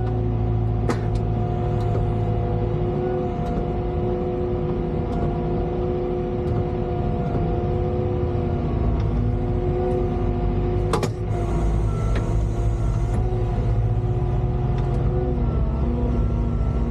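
Volvo EWR150E wheeled excavator's diesel engine running steadily under work, with a few sharp clicks and a louder knock about 11 seconds in, followed by a short hiss.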